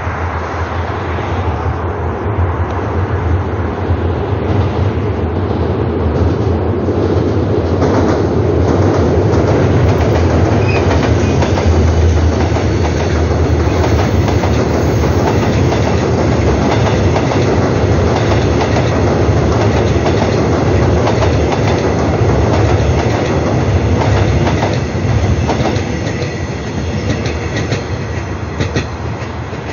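Seoul Subway Line 4 electric multiple unit cars, being hauled unpowered as a special delivery train, rolling past close by with the wheels clicking over the rail joints. The noise builds over the first ten seconds and eases off in the last few.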